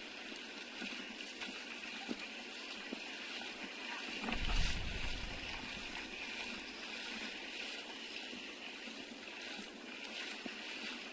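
Water splashing and sloshing, with a brief low rumble about four seconds in.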